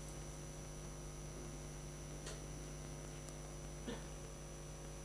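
Steady low electrical mains hum with faint room noise, broken only by two faint brief sounds about two and four seconds in.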